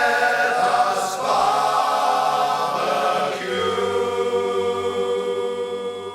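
Several voices singing the final line of a Christmas song together, with backing music. From about halfway through they hold one long closing chord.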